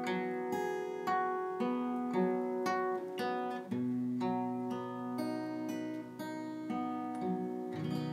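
Solo acoustic guitar played without singing: picked notes and chords ring out at about two a second, with a low note struck near the end and left to ring.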